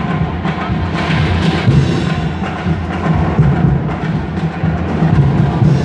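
Loud drumming and percussion, with many irregular strikes.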